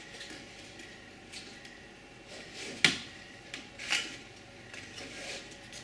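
Thin laser-cut wooden pieces clicking and knocking softly as their tab-and-slot joints are worked together and pressed into place by hand, with two sharper clicks around the middle.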